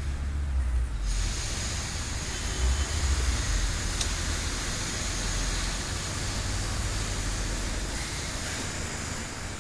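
Steady hiss over a low hum, the hiss coming up about a second in and then holding even.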